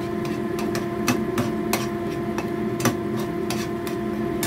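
Metal slotted spatula knocking and scraping against a frying pan while stirring thick, simmering chili paste, sharp clicks about two or three a second. A steady hum runs underneath.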